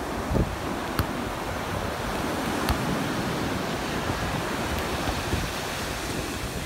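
Steady rush of breaking surf with wind on the microphone, and a few sharp thuds of a football being struck back and forth in the air.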